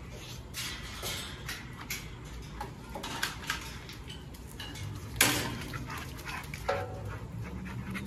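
Dogs moving about a concrete kennel run, with a scatter of clicks and metallic clatter and one sharp knock about five seconds in.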